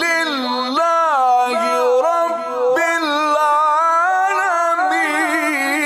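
A man chanting the Quran in the melodic mujawwad style, unaccompanied, drawing out long ornamented notes that bend and waver in pitch. The line sits a little higher near the end.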